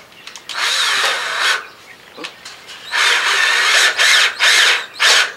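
Cordless drill driving a screw into paneling: one whirring run of about a second starting half a second in, a longer run of about two seconds from three seconds in, and a couple of short trigger blips at the end.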